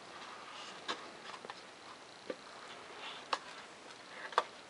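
Faint rustling with about six light taps as foam board pieces are handled and set down on paper plans, the two sharpest taps coming after about three seconds and near the end.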